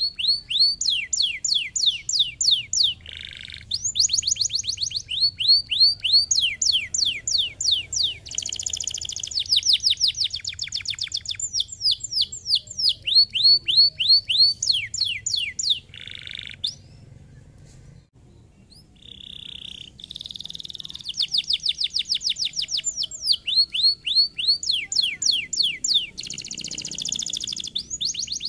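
Domestic canary singing: fast trills of repeated downward-sweeping whistled notes alternating with buzzy rolls, with a short pause about two-thirds of the way through before the song resumes.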